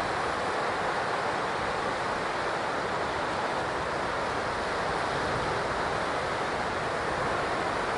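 Steady rushing of ocean surf and wind on a beach, an even noise that does not rise or fall.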